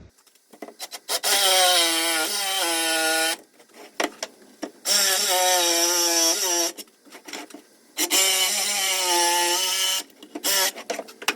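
Handheld electric power saw cutting through a 2×10 pine board in three passes of about two seconds each. The motor's whine sags in pitch as the blade bites into the wood. Short clicks and knocks come between and after the cuts.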